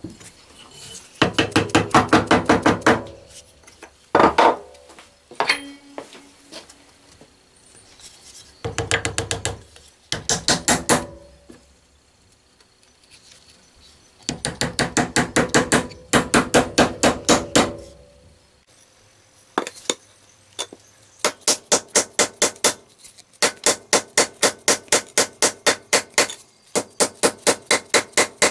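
A hatchet head being knocked down onto its new wooden handle to seat it: rapid, loud wooden-and-metal knocks, about five a second, in several bursts with short pauses between them. The knocks become crisper and more even in the last third.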